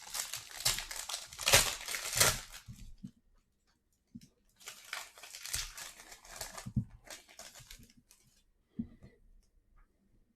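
A trading card pack wrapper being torn open and crinkled, in two spells of crackling about a second apart, followed by a couple of light clicks near the end.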